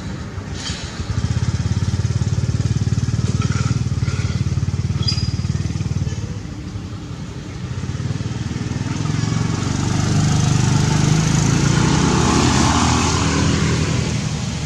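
An engine running steadily, a low drone that begins about a second in, eases off briefly in the middle and grows louder again near the end.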